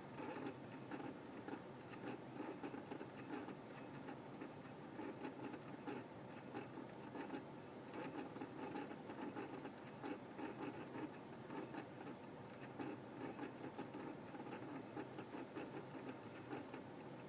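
Rapid, irregular pattering and ticking: many small clicks a second with no steady rhythm, over a low steady hum.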